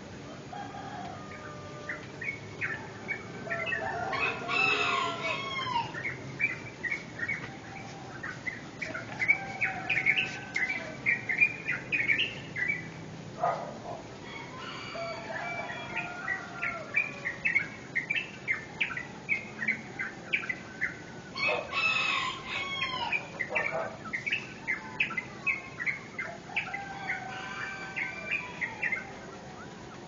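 Rooster crowing twice, once several seconds in and again past the middle, over a continuous dawn chorus of small birds chirping rapidly.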